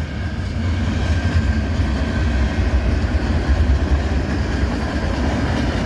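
Freight train cars rolling past at close range: a steady rumble of steel wheels on the rails.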